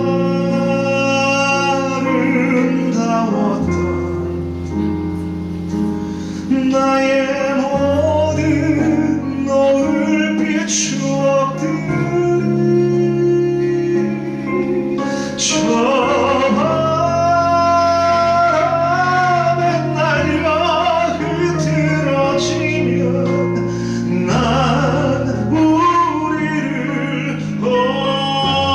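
Song with a male singer's voice in long held, wavering notes, with no clear words, over instrumental accompaniment of sustained chords and a bass line that changes every second or two.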